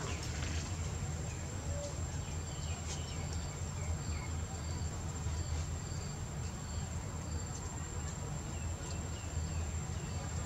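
Outdoor background ambience: a steady low rumble, with faint short high chirps repeating about once a second.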